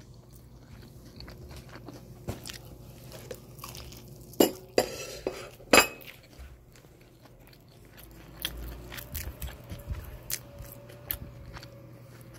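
Crispy fried chicken coating crunching as it is bitten close to the microphone, with a few loud crunches about four to six seconds in. A run of smaller crunches follows as it is chewed, over a faint steady hum.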